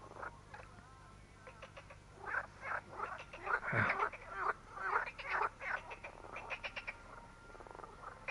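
Frogs calling from the lake, a run of rapid pulsed croaks repeated in clusters.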